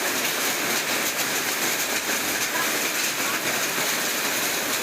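Hail falling with heavy rain: a dense, steady hiss thick with small clicking impacts of hailstones.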